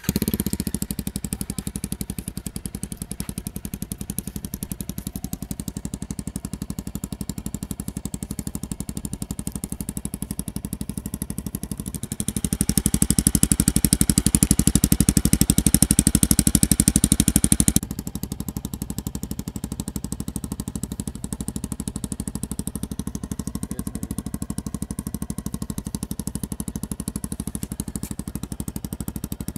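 Jawa 42's single-cylinder engine idling through its stock twin exhausts with the dB-killer caps removed and the dB killers set for maximum loudness, with no catalytic converter. About twelve seconds in the throttle is held open for about six seconds, louder and brighter, then it drops back to idle.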